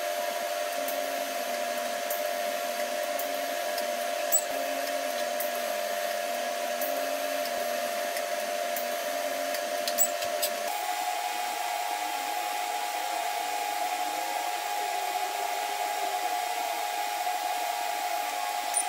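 TIG welding arc buzzing steadily while mild steel is fusion welded without filler rod. The buzz steps to a slightly higher pitch about eleven seconds in.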